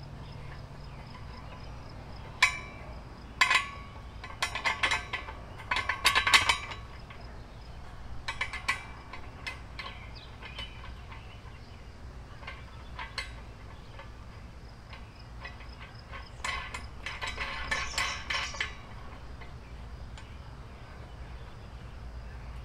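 Steel parts of a homemade solar-panel pole mount clinking and clanking as they are handled at the pivot. Sharp metallic clinks with a short ring come in clusters, mostly in the first third and again past the middle.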